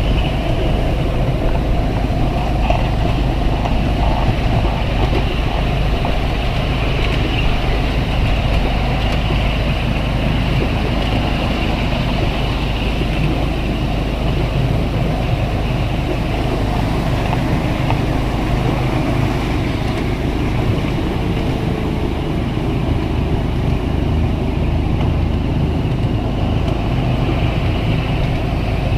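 Ride-on miniature railway train running steadily along its track, heard from a passenger car: a continuous, even rumble of the moving train.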